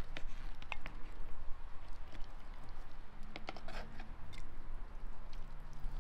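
Wooden spoon scooping stew out of a baked bread pot and setting it onto a ceramic plate: scattered light clicks, with a brief scraping noise a little past halfway.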